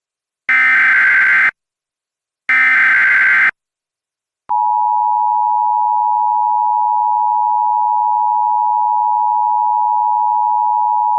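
Emergency Alert System tones: two one-second bursts of the SAME digital header, a harsh buzzing warble, a second apart, then after a second's gap the steady two-tone EAS attention signal (853 and 960 Hz) begins about four and a half seconds in. The sequence announces an emergency alert, here a tornado warning.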